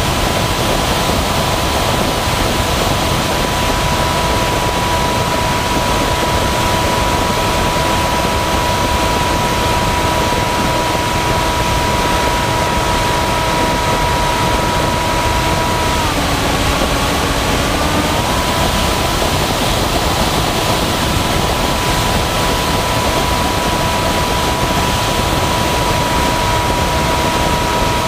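Model flying wing's motor and propeller running at a steady whine under loud wind rush on its onboard camera's microphone; about 16 s in the whine drops in pitch for about two seconds as the throttle eases, then climbs back.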